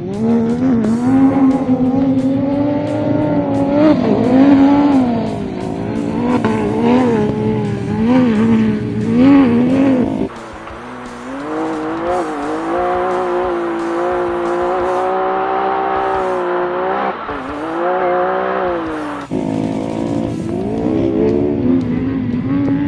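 Off-road race vehicle's engine revving hard and easing off over and over, its pitch repeatedly rising and falling as the vehicle is driven at racing speed.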